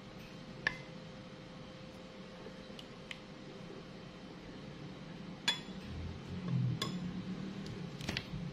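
Metal ladle stirring a drink mixture in a glass bowl, clinking against the glass about five times, with the stirring growing louder in the second half. A faint steady hum runs underneath.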